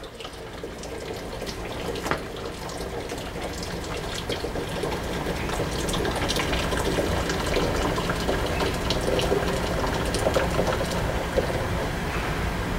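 Water running out of a Johnson 15 hp outboard's lower leg and splashing into the tank below in a steady stream. It grows a little louder over the first few seconds, then holds.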